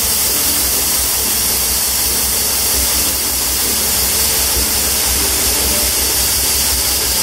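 Air suspension on a bagged Honda Accord hissing steadily as air is let out of the bags to lower the car, with a low rumble underneath; the hiss cuts off about a second and a half after the end.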